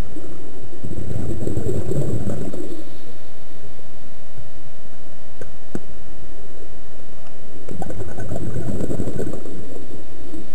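Scuba diver's exhaled bubbles from the regulator, heard underwater: two gurgling bursts about six seconds apart, over a steady thin hum.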